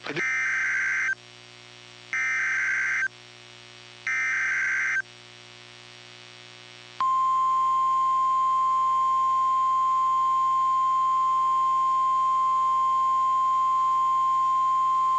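NOAA Weather Radio emergency alert: three short SAME digital header bursts, each about a second long and two seconds apart, then, about seven seconds in, the steady single-pitch 1050 Hz warning alarm tone comes on and holds. The sequence signals that a tornado warning is about to be read.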